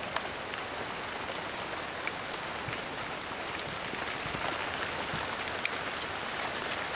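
Steady rain falling: an even hiss with scattered single drops ticking close by.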